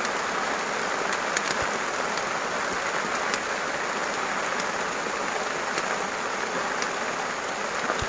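Steady rain falling, an even hiss with a few scattered sharp ticks from drops striking close by.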